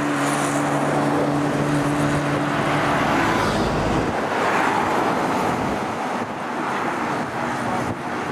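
Car engine running at a steady speed, its even note giving way about three seconds in to road and traffic noise; a faint steady engine note returns near the end.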